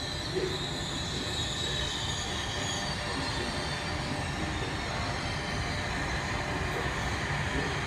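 Train running through a station: steady rumbling of wheels on rails, with a high wheel squeal over the first few seconds that fades away.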